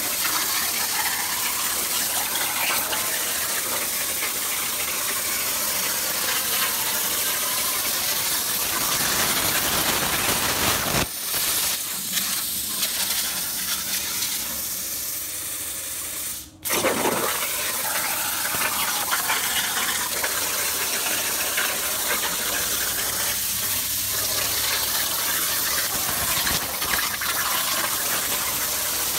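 CNC plasma cutter torch cutting 16-gauge hot-rolled sheet steel with a 45 amp tip, a loud steady hiss of arc and air. The hiss breaks off briefly about a third of the way in and runs quieter afterwards. Just past halfway it cuts out almost completely for a moment, then starts again at full strength as the torch fires into the next cut.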